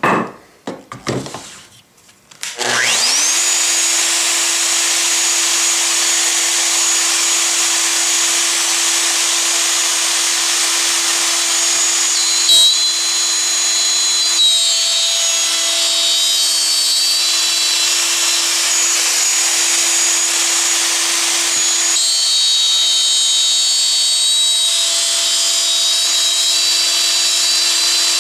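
A few handling clicks, then a Festool OF 2000 plunge router starts up about two and a half seconds in, its whine rising quickly to a steady pitch. It runs on while plunging and cutting a blind dado slot in the wood, with a sharp click about twelve seconds in.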